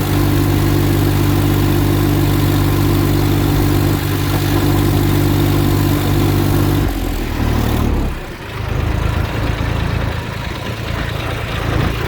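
Massey Ferguson 1035 tractor's three-cylinder diesel engine running steadily at working speed. About seven seconds in its pitch drops, and it runs lower and rougher after that.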